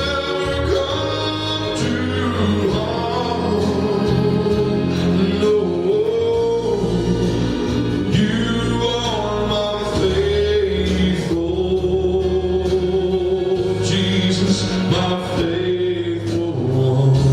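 A gospel song performed live: singing voices with instrumental accompaniment that holds sustained low notes.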